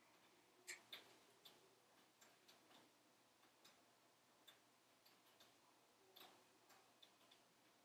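Faint, irregular crackles and pops from a wood fire burning in a closed wood stove: short sharp snaps, about a dozen spread unevenly, over a soft background hiss.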